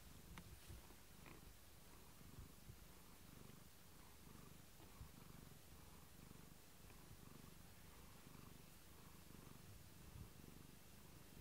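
Faint, steady purring of a cat lying settled and completely calm, the rumble rising and falling evenly with its breathing.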